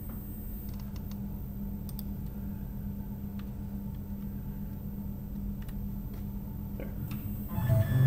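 Steady low electrical hum of a CNC mill and its control, with a few faint, scattered clicks like keys being pressed on the control keyboard to jog the axis. Near the end, louder low musical tones come in.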